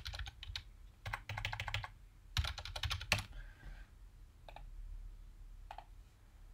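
Computer keyboard typing in three quick bursts of keystrokes, followed by a couple of isolated clicks further on.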